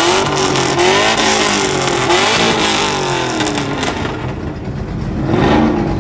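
Car engine revving: its pitch climbs and falls back over the first three seconds, then climbs again briefly near the end.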